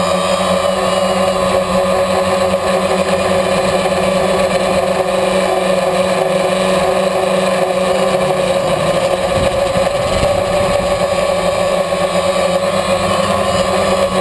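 DJI Phantom quadcopter's motors and propellers running steadily: an even, droning buzz on fixed pitches, with some wind noise on the microphone.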